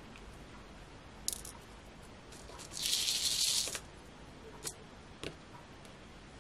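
Small gold gems rattling in a plastic triangle craft tray for about a second, with a few light clicks before and after.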